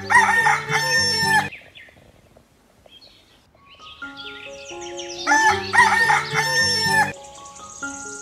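A rooster crowing twice, about five seconds apart, the same crow repeated each time, over light background music.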